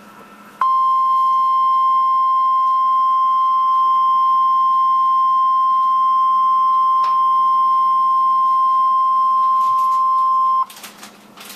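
NOAA Weather Radio 1050 Hz warning alarm tone: one steady, loud, pure beep held for about ten seconds, then cut off abruptly, followed by brief crackle. The tone signals that an emergency warning message, here a blizzard warning, is about to be broadcast.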